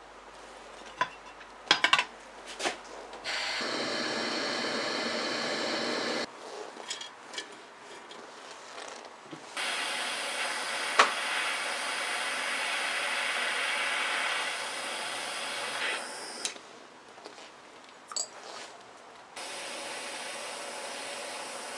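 Handheld butane torch lighter burning with a steady jet hiss in three stretches while it heats small rusty steel screws and washers, with sharp clicks and small metal taps between the stretches.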